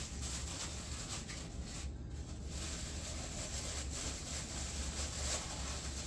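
Styrofoam packing and plastic wrap rustling and rubbing as parts are handled in a foam tray, irregular and scratchy, over a steady low hum.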